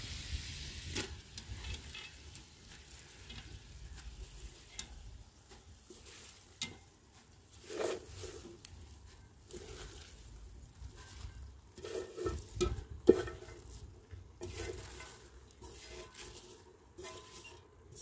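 Tomato-and-pork sauce sizzling in a cauldron over an open fire, fading over the first couple of seconds. Then shredded cabbage rustles as it is tipped in from a metal bowl, with scattered clicks and knocks of the bowl against the cauldron, the sharpest about thirteen seconds in.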